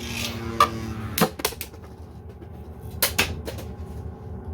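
3D-printed Beyblade spinning tops humming in the stadium, then sharp plastic clacks as they collide: a clash about half a second in, a cluster just after a second, when the hum stops, and two more near three seconds in. Both tops are knocked out.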